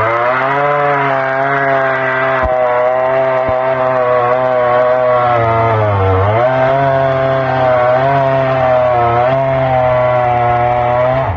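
Chainsaw running steadily with a slightly wavering pitch that sags briefly about six seconds in, then recovers.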